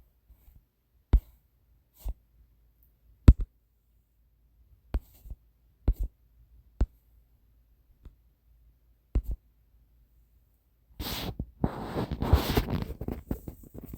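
Scattered sharp clicks, about a dozen spaced irregularly, then near the end a busier stretch of rustling noise with rapid clicks.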